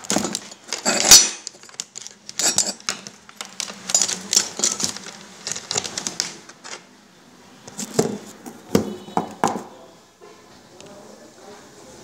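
Irregular clinking and knocking of small hard metal objects being handled on a workbench, a quick scatter of sharp clicks that thins out near the end.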